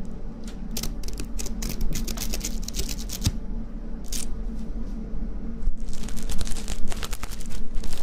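Close-miked ASMR rustling: runs of rapid, crisp crackles, one starting about half a second in and a louder one near the end, over a steady low hum.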